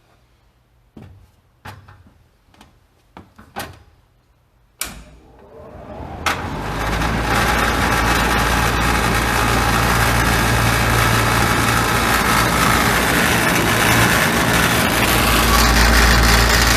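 A few light knocks, then a sharp click, after which the Furuta industrial pressure ventilation fan spins up over about two seconds and runs steadily with a loud rush of air over a low motor hum.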